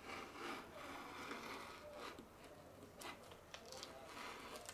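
Faint, soft scraping and rustling strokes of fabric fused to paper-backed HeatnBond being cut with a rotary cutter and moved about on a cutting mat.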